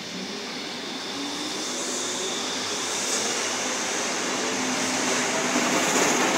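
A Berlin U-Bahn type A3 train pulling out of the station and running past, its running noise growing steadily louder as it picks up speed.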